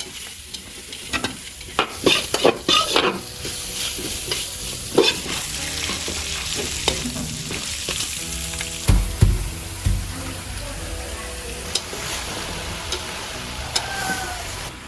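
Pork sausage filling sizzling in a pan over a wood fire as it is stirred. The utensil scrapes and clacks against the pan, most busily in the first few seconds, with a couple of low knocks near the middle.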